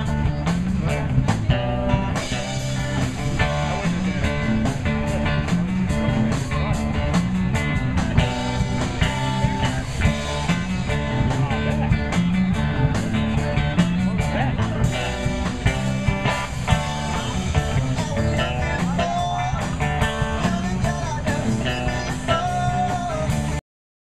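Background music with a steady beat, cutting off suddenly near the end.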